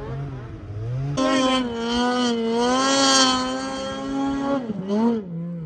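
Snow machine engine revving hard: its pitch climbs about a second in and is held high with a slow waver as it churns through deep powder, then drops off briefly near the end.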